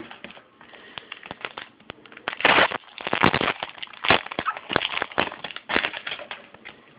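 Crinkling and crackling of a trading-card pack wrapper being torn open and handled: a dense run of sharp crackles with louder bursts in the middle.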